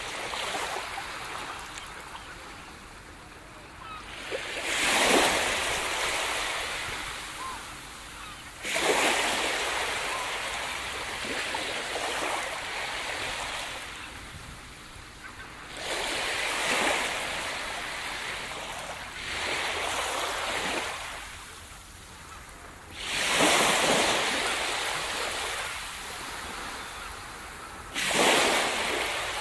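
Ocean surf breaking on a shore: a wash of waves that surges suddenly and then fades, about six times over the stretch.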